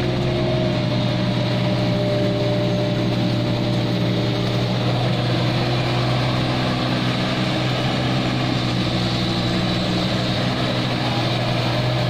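Kubota mini excavator's diesel engine running steadily while the arm scoops sludge from a drain.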